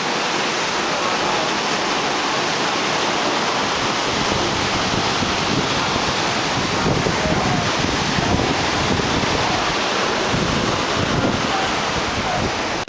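Heavy surf breaking on a beach, a steady rushing, mixed with wind buffeting the microphone in low gusts that grow stronger from about four seconds in.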